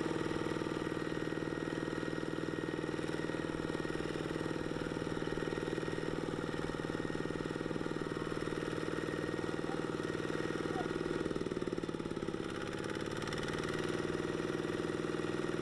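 Engines running steadily: a two-wheel walking tractor bogged in mud up to its gearbox and a combine harvester pushing it from behind. The engine note dips briefly in pitch and loudness about three-quarters of the way through, then picks back up.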